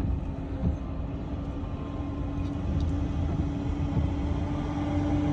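A car running, heard from inside the cabin: a steady low rumble with a constant hum, getting slightly louder toward the end.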